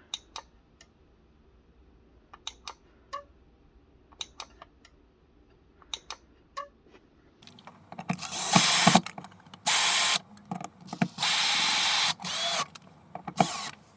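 Scattered light clicks and taps, then from about eight seconds in a power drill/driver running in several short bursts.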